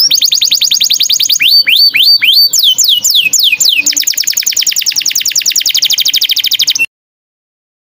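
A small songbird singing rapid 'tembakan' volleys: fast runs of repeated high whistled notes, some rising and some sweeping down, switching pattern every second or two. The song cuts off suddenly near the end.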